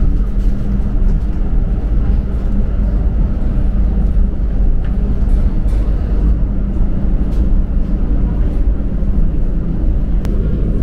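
Steady low rumble of a moving passenger train heard inside the carriage, with a few faint ticks.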